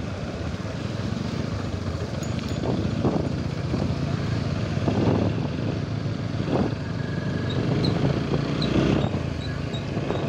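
Motorcycle engine running steadily while riding at low speed, with a few brief swells in the sound.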